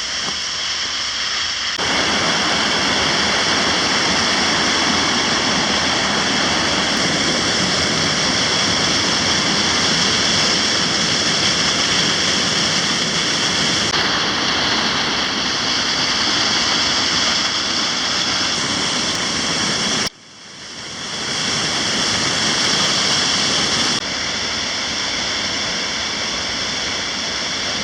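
Waterfall rushing steadily and loudly. Its level and tone shift abruptly a few times, and about two-thirds of the way through it drops sharply, then builds back up.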